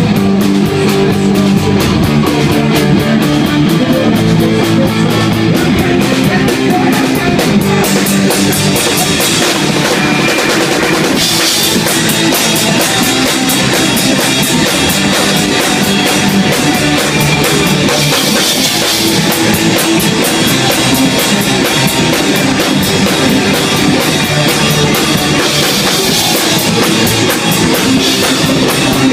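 Rock band playing live: electric guitar over a drum kit with fast, steady cymbal strokes, loud and dense.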